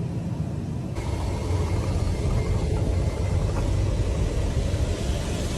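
Loud, steady roar of air rushing through a Boeing 737 MAX's cabin in flight, depressurized after a section of the fuselage, a door plug, blew out. It grows louder about a second in.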